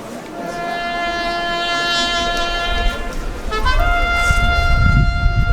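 A horn, like a trumpet, sounding two long held notes, the second one sliding up into its pitch. Low wind rumble on the microphone grows under the second note.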